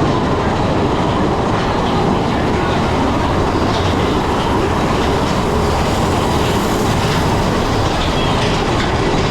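Big Thunder Mountain Railroad's mine-train coaster cars running along the steel track, heard from on board as a steady, loud noise of wheels on rail without a break.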